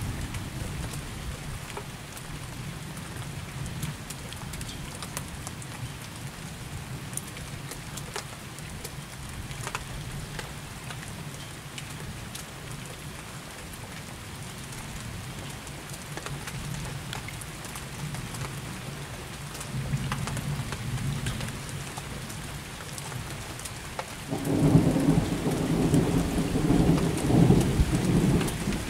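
Steady rain with single drops ticking close by, under a low rumble of thunder. The thunder swells briefly about two-thirds in, then rolls up loud near the end.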